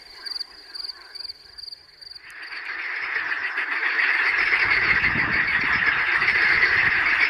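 A cricket chirps in short, regular high pulses, then about two seconds in a loud, dense chorus of water frogs croaking and cackling takes over abruptly.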